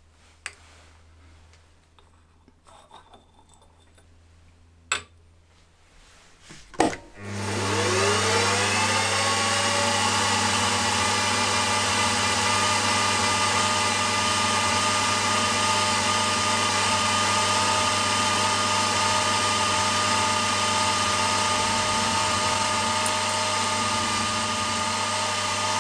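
A few light clicks, then a milling machine's motor starts about seven seconds in. Its whine rises as it spins up, and it runs steadily while a 6 mm drill bores through a stack of clamped metal plates.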